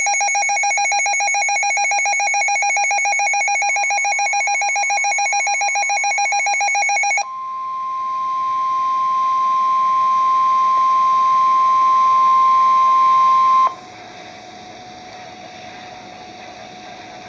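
Weather radio alert: a fast-pulsing electronic alarm for about seven seconds, then the single steady weather radio warning alert tone, which grows louder and cuts off suddenly about six seconds later, leaving a fainter, lower steady tone. It signals an incoming emergency warning.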